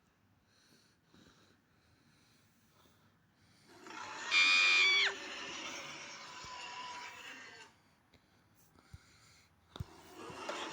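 A short, high-pitched scream or squeal about four seconds in, held for about a second at one pitch and then falling off. A duller noisy bed continues behind it for a few seconds before cutting out.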